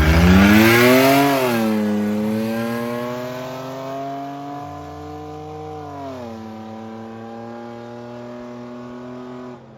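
A drag vehicle's engine revving hard as it launches and pulls away. The pitch climbs, drops about a second in, climbs slowly again and drops once more near six seconds in, while the sound fades steadily as the vehicle moves off.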